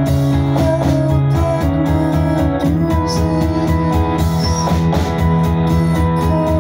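Live indie rock band playing: electric guitars, electric bass and drum kit, with held chords over a steady beat.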